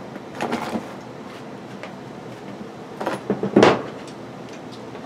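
Handling noise from wiring a plastic pull-chain lampholder: a few light clicks and knocks under a second in, then a louder short clatter about three and a half seconds in.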